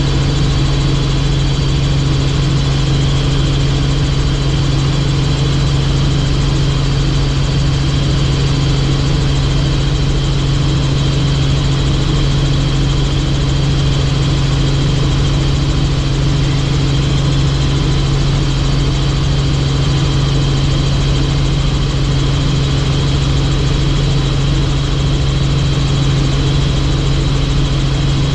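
Helicopter in flight: a steady, loud engine and rotor drone with a thin high whine above it, unchanging throughout.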